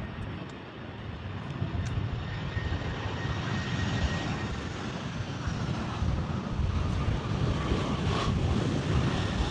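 Jet airliner coming in to land. Its engine roar and low rumble grow steadily louder as it approaches, with a faint thin whine above.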